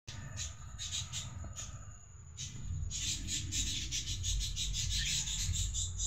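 Rapid, high-pitched animal chirping, repeated several times a second and thickening about halfway through, over a low rumble of handling noise on the microphone.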